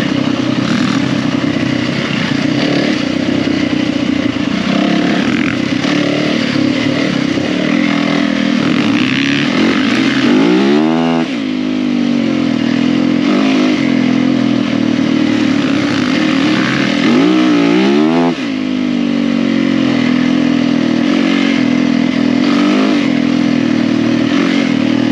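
Yamaha 450 four-stroke single-cylinder dirt bike engine running at a steady trail-riding throttle, heard on board. Twice, about ten seconds in and again about seventeen seconds in, the revs drop and climb back up as the throttle is rolled off and on.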